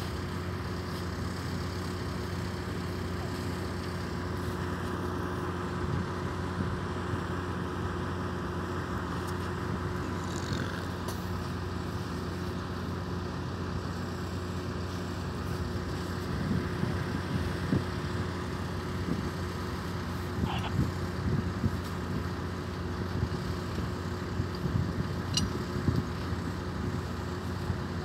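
Heavy-equipment engine running steadily with a constant drone, joined about halfway through by irregular low knocks.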